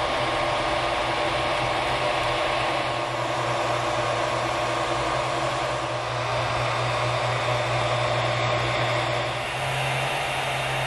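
Creality Ender 3 3D printer running mid-print: a steady whir from its fans with a low, even hum under it, shifting slightly about nine and a half seconds in.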